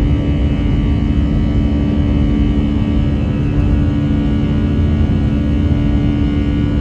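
Cabin noise of an Airbus A320-200's jet engines at climb power just after takeoff: a loud, steady rumble with two steady low hums over it.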